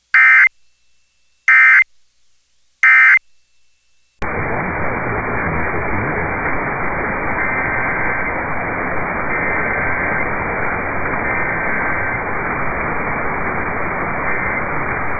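Three short bursts of Emergency Alert System digital data tones about 1.4 s apart, the short end-of-message signal that closes an alert. About four seconds in it cuts to steady radio static hiss, with faint tones heard through it now and then.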